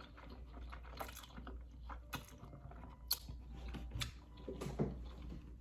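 A person chewing a mouthful of noodles close to the microphone: soft wet mouth clicks and smacks, with a few sharper clicks about a second apart.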